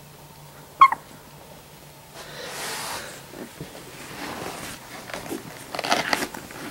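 A three-week-old Labrador Retriever puppy gives one short, high squeak about a second in. Rustling follows as the puppies shift about on fluffy bedding.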